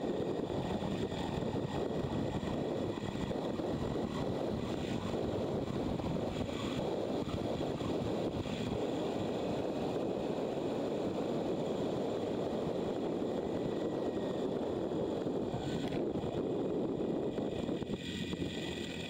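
Steady rush of wind over the microphone and road noise from a motorcycle riding at speed, easing slightly near the end.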